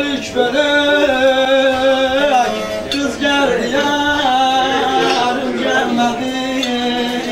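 Bağlama (long-necked Turkish saz) playing a folk melody under a man's voice singing long held notes with wavering, sliding ornaments.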